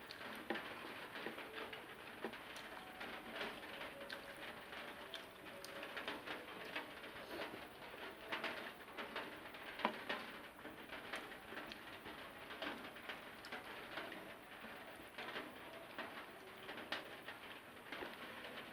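Close-up eating sounds: chewing and mouth clicks while eating rice and curry, with many small irregular clicks and smacks throughout.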